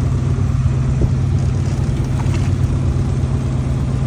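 A motor aboard a small fishing boat running steadily, with a constant low hum and a few faint clicks.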